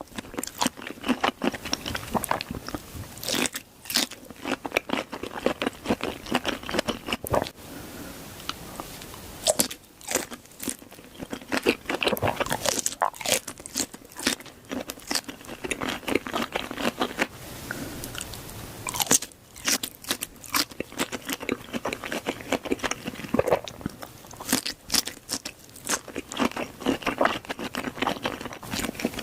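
Close-miked eating: crunchy bites and chewing, with many irregular crackling crunches throughout.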